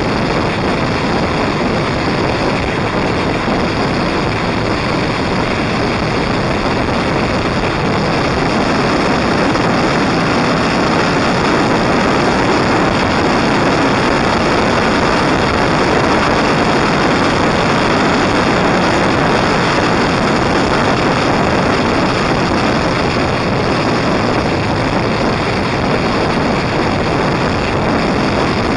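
Steady rush of wind over the microphone mixed with engine and road noise from a touring motorcycle cruising at a constant speed.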